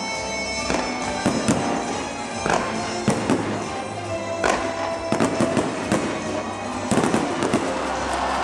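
Aerial fireworks shells bursting in a string of sharp bangs, some spaced a second or so apart and others in quick clusters around the middle and near the end, with music playing underneath.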